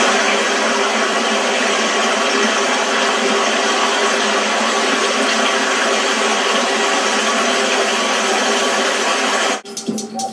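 A steady, dense rushing noise from a TV soundtrack, even throughout, that cuts off abruptly near the end as rhythmic electronic music with sharp clicks begins.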